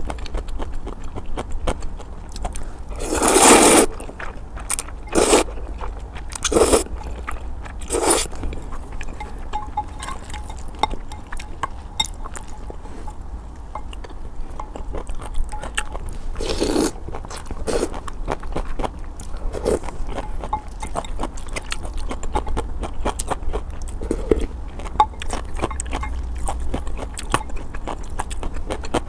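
A person eating luosifen rice noodles close to the microphone: steady wet chewing clicks, broken by several louder slurps of noodles, a cluster of them in the first eight seconds and another about seventeen seconds in.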